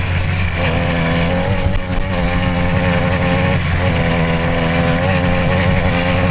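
66cc two-stroke motorized-bicycle engine opening up at full throttle: a steady high-revving drone that dips briefly about two seconds and nearly four seconds in.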